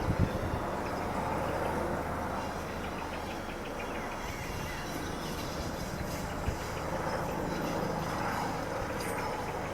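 Police helicopter flying overhead: a steady low drone from the rotors, with two brief knocks, one just after the start and one past the middle.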